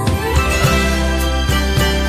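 Background music: a steady beat with bass and sustained instrument tones.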